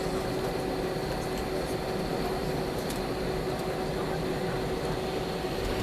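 Steady airliner cabin noise before takeoff: an even hum of engines and air conditioning with a constant mid-pitched whine running through it.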